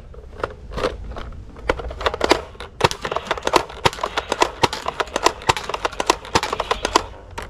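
Rapid, irregular clicks and knocks of plastic toy blasters being handled, over a low steady hum.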